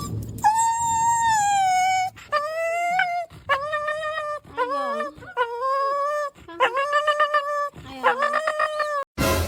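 A dog howling in a series of about seven drawn-out, high calls. The first is the longest and falls in pitch, the later ones are shorter. A short, loud noisy burst comes near the end.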